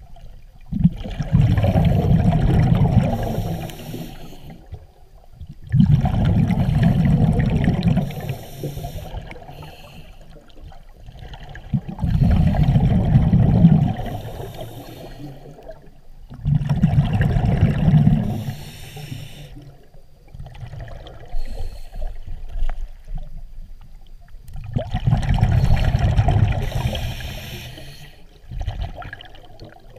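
Scuba diver's exhaled breath bubbling out of the regulator underwater, in bursts of two to three seconds about every five or six seconds, one burst per breath, with quieter gaps between.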